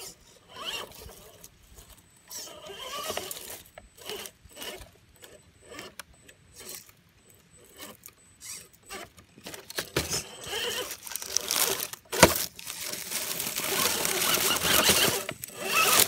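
RC4WD Trailfinder 2 scale rock crawler's electric motor and geared drivetrain whining in short bursts of throttle as it crawls over boulders, with its tyres scrabbling and clicking on the rock. A sharp knock comes about twelve seconds in, and the scrabbling is denser and louder over the last few seconds.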